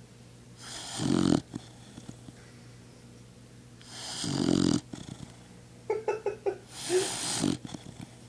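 Dog snoring in its sleep: three long snoring breaths about three seconds apart, each building up and then cutting off, with a brief run of quick fluttering sounds just before the third.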